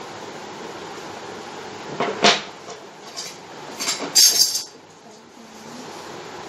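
Handling noise from the drawing paper and compass over a steady hiss: one sharp knock about two seconds in, then a cluster of knocks and scraping around four seconds in.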